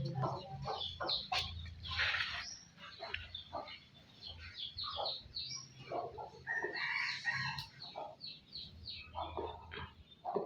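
A rapid run of short, high animal calls, squeaks and chirps following one another with brief gaps, over a faint steady low hum.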